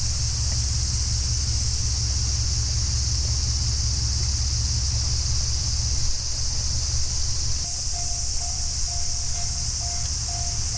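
A chorus of cicadas makes a steady, loud, high-pitched drone, over a low pulsing rumble. About two-thirds of the way in, a short repeated tone starts, about twice a second.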